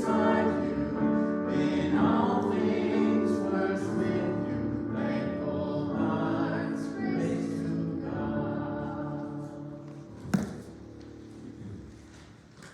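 A congregation singing a hymn together, the held final notes dying away about three quarters of the way through. A single sharp knock follows shortly after.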